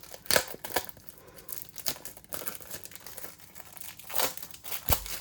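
Paper mail and packaging being handled and unwrapped, crinkling and rustling in irregular strokes, with a soft knock near the end.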